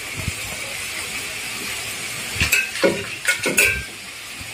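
Milk-and-water mixture with ghee heating to a boil in a kadhai, giving a steady sizzling hiss. A few louder knocks and scrapes against the pan come a little past halfway.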